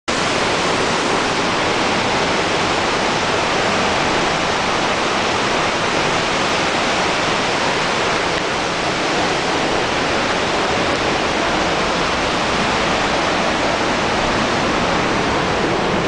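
Pailón del Diablo waterfall pouring close by: a loud, steady rush of falling water.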